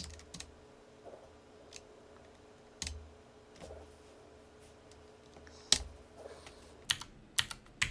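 Computer keyboard keys pressed one at a time, as when stepping through a text menu with the arrow and Enter keys: about a dozen sharp, irregular clicks, some more than a second apart and a quick pair near the end, over a faint steady hum.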